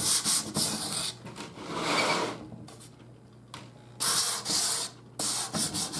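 Sanding the black-painted wood frame of a plate shelf to distress it through to the bare wood: scratchy rubbing strokes in several bursts, with a quiet pause about three seconds in.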